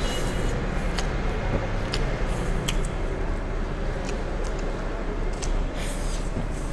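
Fried noodles being slurped and chewed straight from the plate without hands, with scattered clicks and smacks from mouths at the food over a steady background hiss.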